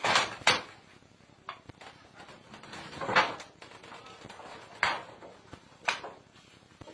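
A handful of short, sudden knocks and scrapes, about five spread a second or two apart, with quiet between them.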